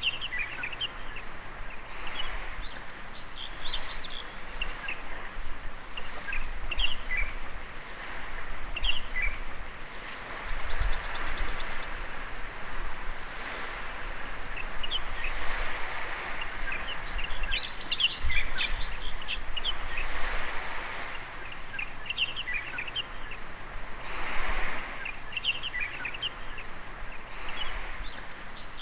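Small waves washing onto a beach in swells every few seconds, with birds chirping over them; a quick run of high notes about ten seconds in.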